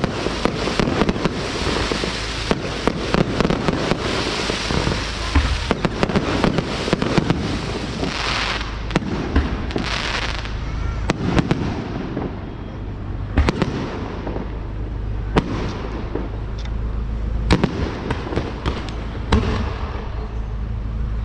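Fireworks and firecrackers going off: a dense run of crackling and bangs for about the first eight seconds, then more widely spaced single bangs.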